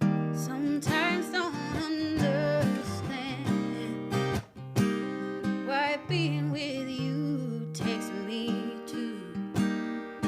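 Solo live song: acoustic guitar strummed, with wordless sung vocal runs sliding and wavering in pitch twice over the chords.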